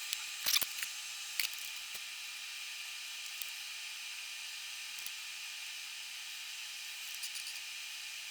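Steady high hiss with a faint constant tone, with a few light clicks in the first two seconds. The hiss cuts off abruptly right at the end.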